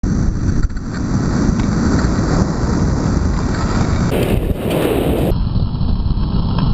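Loud wind rumble buffeting the microphone of a camera carried at speed behind a pack of short-track speed skaters on ice. Its tone shifts briefly to a brighter hiss about four seconds in.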